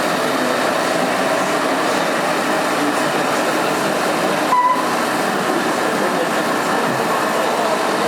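RC model trucks running with steady engine-like noise, likely from their electronic sound modules. A short high tone sounds about halfway through.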